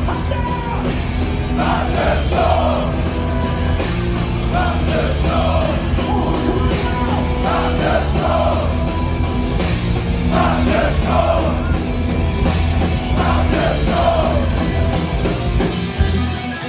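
Heavy metal band playing live at full volume: distorted guitars, bass and drums, with vocal lines breaking through every few seconds. The full band drops out right at the end.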